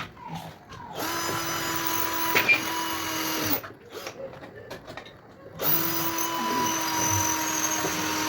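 Small electric power tool, such as a drill, running steadily at a constant pitch in two bursts of a few seconds each, with a short pause of handling noise between them.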